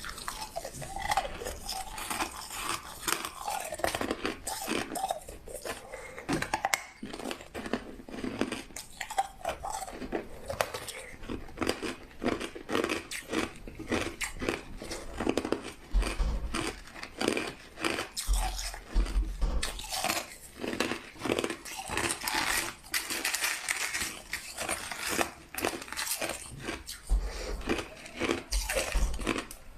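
Crushed ice being bitten and chewed close to the microphone: a dense, irregular run of sharp crunches.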